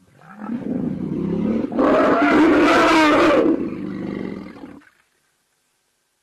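A large animal roaring loudly in a wildlife encounter between a lion and an elephant. It rises over about two seconds, is loudest for a second or so, then fades and stops.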